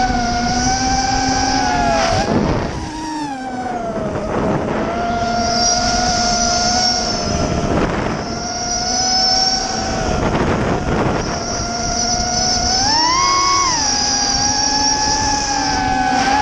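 ImmersionRC Vortex racing quadcopter's Xnova 2204 brushless motors and propellers whining, the pitch shifting with throttle and rising briefly near the end. Several short rushes of wind noise cut through the whine.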